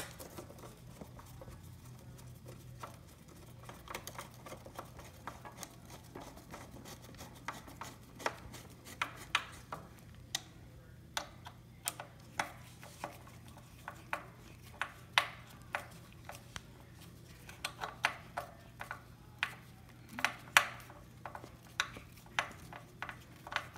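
Screws being turned into a Razor E300 scooter deck with a hand screwdriver: irregular sharp clicks and light scraping, about one or two a second, getting louder in the second half.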